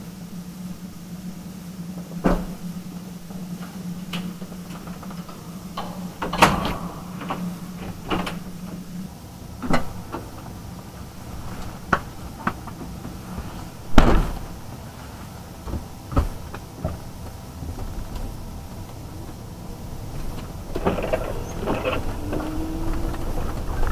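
Knocks and clunks of a car door and cabin fittings being handled as someone settles into the driver's seat, with the loudest thud about fourteen seconds in. Near the end a steadier noise sets in as the windscreen wipers start sweeping.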